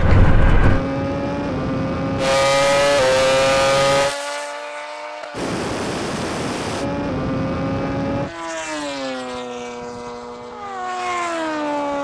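Racing vehicles running down a drag strip. A steady, high engine note alternates with stretches of rushing wind and tyre noise. In the last few seconds the pitch falls as a vehicle slows.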